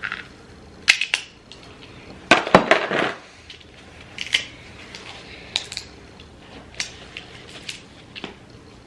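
Dungeness crab shell cracked and broken apart by hand: a string of sharp cracks and snaps, with the loudest run of crunching about two and a half seconds in.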